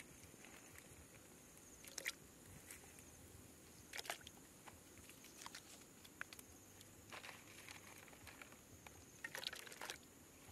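Ingredients (lemongrass stalks, garlic cloves, lime leaves, red chilies) being dropped into a pot of water: about five faint, short splashes and knocks, spaced a second or two apart, over a low steady hiss.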